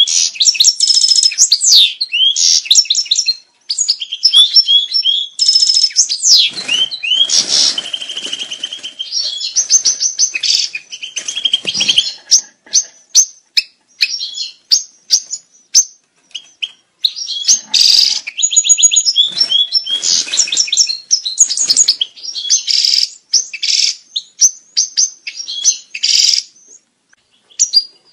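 European goldfinch courtship song: fast twittering and trilling phrases of high, quick chirps. It comes in bursts with short pauses and is sparser for a few seconds in the middle.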